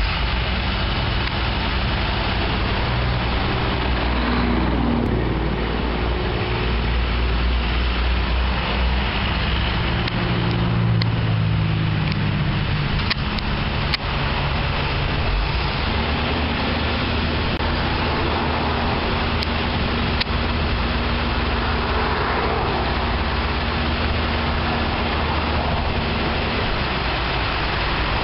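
Crane truck engine running steadily, with road traffic passing.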